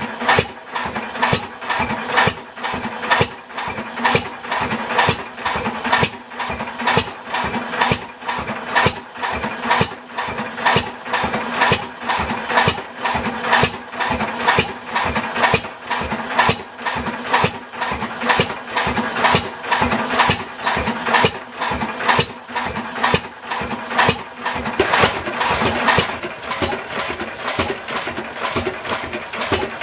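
7 hp Waterloo Boy Type K hit-and-miss stationary gas engine running, with a steady beat of sharp exhaust firings, several a second.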